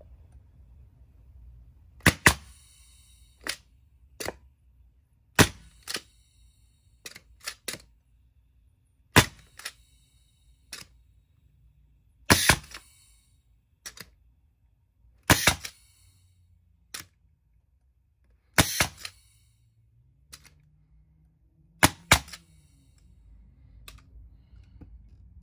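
Pneumatic finishing nailer firing about every three seconds, each shot a sharp double crack, with lighter clicks in between. Each shot draws down the compressor's tank pressure.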